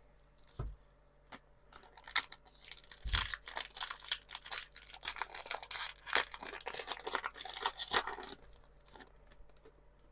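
Pokémon TCG booster pack's foil wrapper being torn open and crinkled, a dense run of crackling from about two seconds in until it fades near the end. A couple of soft thumps come before it.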